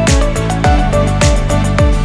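Background electronic music with a steady kick-drum beat, about two beats a second, under a simple melody.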